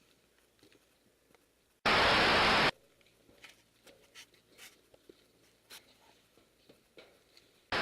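Two short bursts of hissing static noise, each under a second and switching on and off abruptly, the first about two seconds in and the second near the end, with faint clicks and taps between them.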